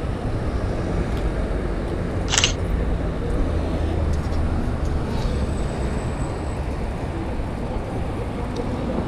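Steady city traffic rumble of cars and buses passing at an intersection. A little over two seconds in comes one short, sharp mechanical snap, the shutter and mirror of a Canon T6 DSLR.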